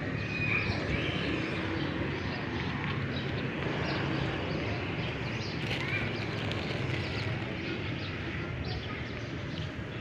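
Steady outdoor background noise with a few faint short bird chirps, one about half a second in and another about six seconds in.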